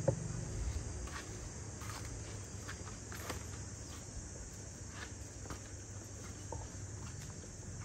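Outdoor ambience: a steady high-pitched insect chorus with scattered light clicks and ticks.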